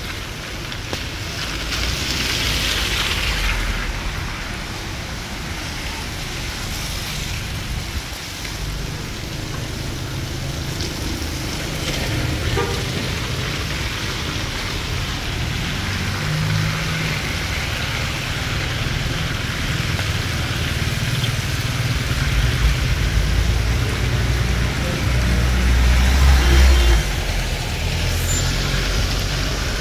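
Cars driving along a wet street: a steady traffic rumble with tyre hiss on the wet road, and the low rumble swelling about 22 seconds in and lasting several seconds.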